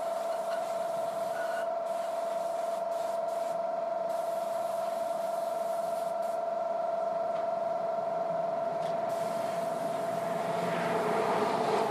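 Air spray gun hissing as primer is sprayed onto plastic motorcycle body panels, with short breaks in the hiss as the trigger is let off. The spray gets louder near the end. A steady tone runs underneath throughout.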